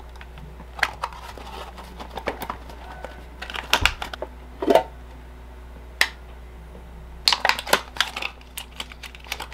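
Hands handling a small plastic battery case and pulling the lithium cell pack out of it: scattered plastic clicks, scrapes and rustles, with a low knock about four seconds in and a quick run of clicks and scrapes near the end.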